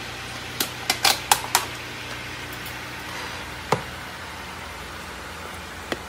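Sharp clicks and taps of plastic deli containers and feeding tongs being handled: a quick run of about six in the first second and a half, then single clicks near the middle and just before the end, over a steady low hum.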